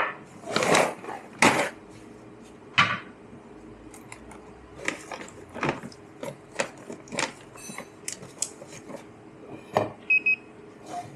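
Cups, saucers and barista tools knocking and clinking on a café counter: a few loud knocks in the first three seconds, then a run of lighter clicks and taps, with a brief ringing tone near the end. A steady low hum runs underneath.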